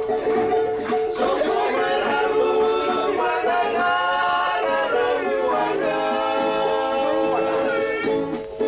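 Several voices singing a song together in harmony, mostly without instruments.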